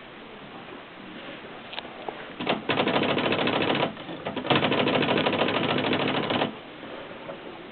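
Consul typewriter mechanism clattering: a few single clicks, then two rapid, machine-even runs of clicks, the first about a second long, the second about two seconds.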